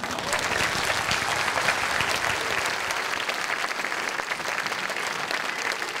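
Audience applauding steadily, the dense clapping of a large crowd beginning right after the closing line of a talk.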